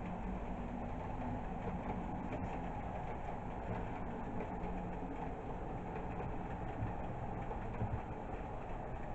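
HO scale model passenger train running along the track: a steady rumble of wheels on rail and the locomotive's motor, with a faint low hum.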